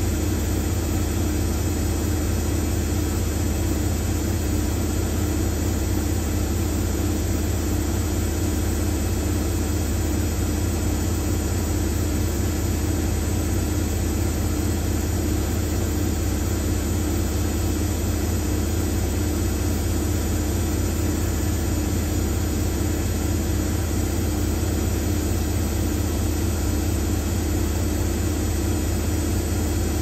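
Hoover Nextra top-loading washing machine on a spin-only cycle, its drum spinning at a steady speed: a constant deep hum with a steady higher tone above it and an even rushing noise, unchanging throughout.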